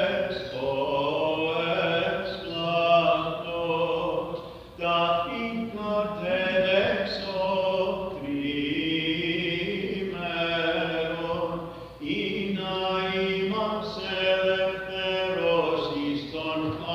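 Orthodox liturgical chant: voices sing a Vespers hymn in long melodic phrases over a steady low held note, with brief pauses between phrases.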